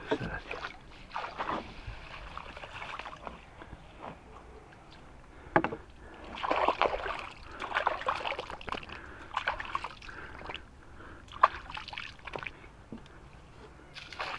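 Water sloshing and splashing in irregular bursts, with two sharp knocks, one a little over five seconds in and one near the end.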